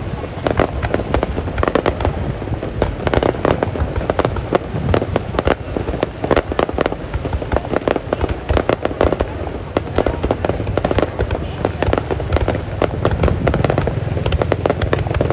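New Year's Eve fireworks display going off: a rapid, unbroken run of bangs and crackles, several a second, over a steady low rumble.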